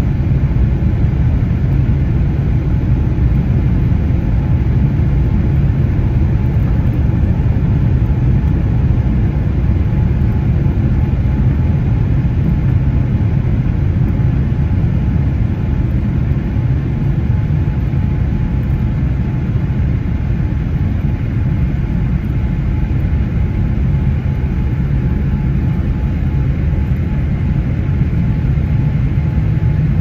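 Airliner cabin noise heard from a window seat in flight: a steady, loud low rumble of the jet engines and airflow over the fuselage, with a faint steady hum on top.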